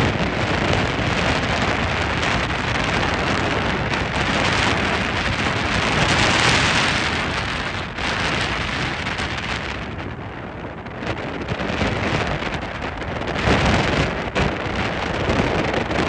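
Wind buffeting the microphone of a camera on a moving speedboat: a loud, rushing noise with no clear engine note, swelling and easing over several seconds.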